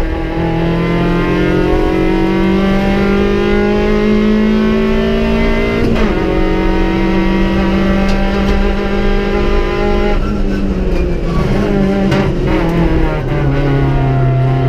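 Opel Corsa B rally car's 1.4-litre Z14XEP four-cylinder engine heard from inside the cabin, pulling up through the revs. The revs fall sharply about six seconds in at a gear change, climb again, then drop and waver around ten seconds in before settling at a lower, steady pitch.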